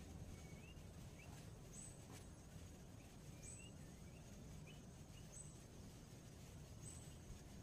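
Very faint outdoor ambience: a bird repeats a short, very high note about every second and a half, with softer, lower rising chirps between, over a low background rumble.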